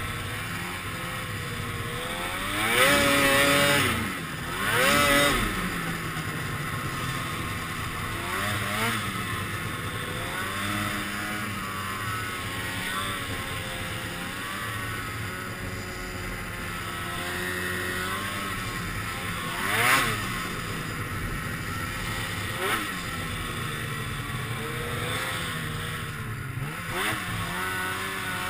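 2002 Polaris 440 Pro X snowmobile's two-stroke twin engine running at low speed and revved hard in short bursts, each rising and falling in pitch. The two loudest come close together about three and five seconds in, with others around nine and twenty seconds in.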